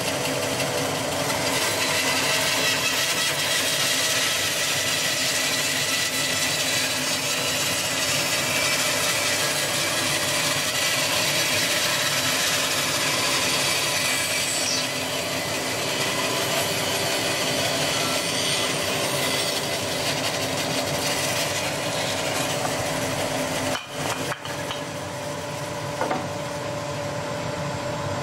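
Charnwood W730 14-inch bandsaw running, its blade resawing a wooden board fed through on edge. A steady cutting noise sits over the machine's hum and briefly drops out a few seconds before the end.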